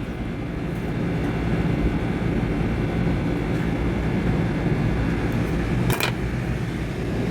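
Steady running hum of air-conditioning machinery, with a single sharp click about six seconds in.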